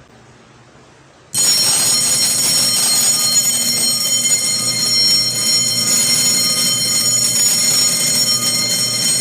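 A 220-volt electric alarm bell starts ringing suddenly about a second in and then rings loudly and continuously: the intruder alarm circuit has tripped.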